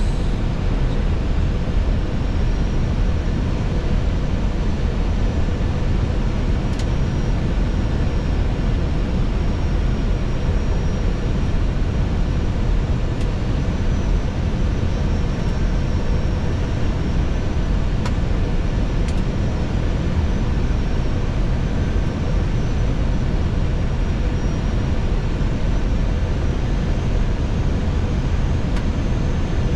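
Steady flight-deck noise of an Airbus A320: an even rush of air over a low hum, with a faint steady high whine and a few faint ticks.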